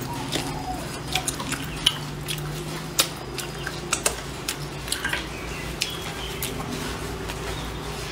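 Close-up eating sounds: wet chewing and lip smacks on braised pig's trotter, broken by a string of sharp clicks and taps. The strongest taps come about two, three and four seconds in. A steady low hum runs underneath.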